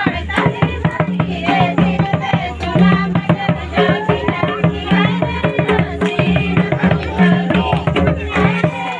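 Santali dong dance music: hand drums beating a fast, steady rhythm, with voices singing over it.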